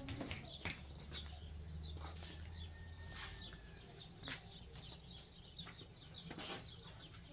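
Faint outdoor ambience with scattered short bird chirps and a few sharp clicks or knocks.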